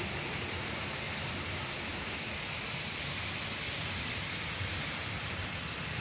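A 25-foot waterfall pouring over a rock ledge into a pool, a steady rushing hiss of falling water.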